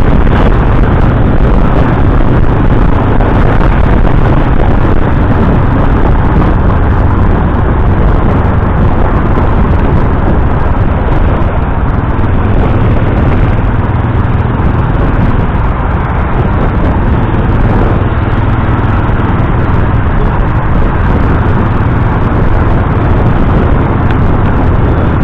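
Motorcycle engine running steadily at road speed, heard from the rider's seat under a loud, even rush of wind and road noise.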